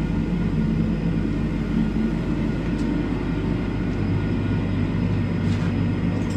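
Steady low drone of workshop machinery running, with a couple of faint light clicks.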